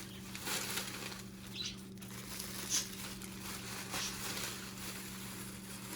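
Faint, scattered rustling and light clicks of toy packaging and plastic pieces being handled and gathered up, over a steady low hum.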